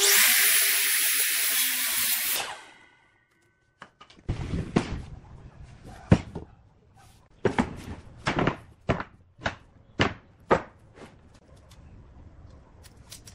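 A power tool runs with a loud hiss for about two and a half seconds, then stops. After a short silence come a dozen or so irregular knocks and thuds of hand work on wood.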